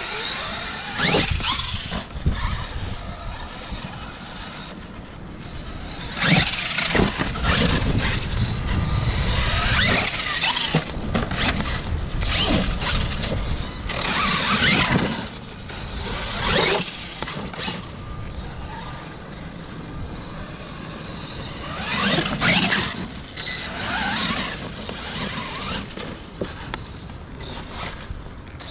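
Radio-controlled monster truck being driven hard on a dirt track. Its motor whines up and down in pitch with each burst of throttle, over the rough noise of its tyres on dirt and leaves.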